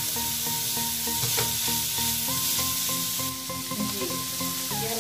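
Chicken mince and shredded vegetables sizzling in a wok while a spatula stirs and scrapes them, with a few light knocks of the spatula on the pan. Soft background music with long held notes plays underneath.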